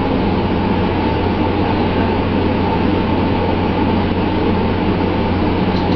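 Steady drone of a fishing vessel's engine, with the hiss of water spray and sea rushing along the hull.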